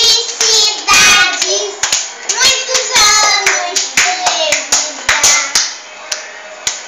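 Young girls clapping their hands in a quick, uneven rhythm while singing along.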